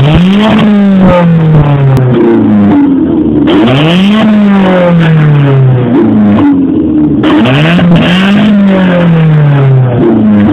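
Car engine revved hard three times, about every four seconds: each rev climbs quickly and then dies away slowly over two seconds or so.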